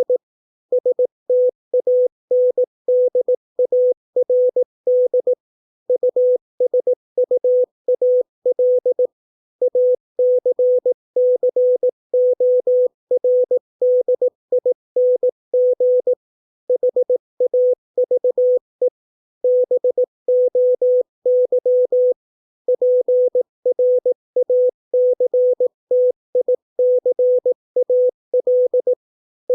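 Morse code (CW) sent as a single steady tone, keyed on and off in rapid dots and dashes at 18 words per minute. It spells out English words, with short pauses between the words.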